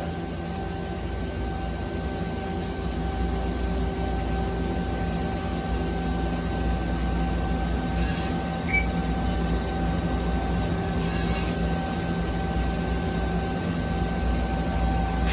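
2006 Mazak QTN 200 CNC lathe running: a steady machine hum with a constant whine, and brief faint hisses about halfway through.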